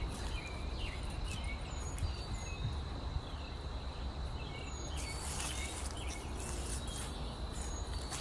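Outdoor ambience: birds chirping, with many short notes and brief whistled glides. Under them runs a steady high-pitched tone and a low rumble.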